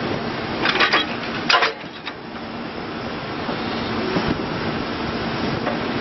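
Case 580N backhoe loader's 84 hp diesel engine running under hydraulic load while the backhoe boom and bucket are worked, with two loud metal clanks from the backhoe arm: a clattering one about a second in and a sharper one about half a second later.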